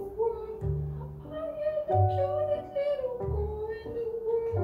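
Background music: a held melody line over low bass notes that recur about every second and a half.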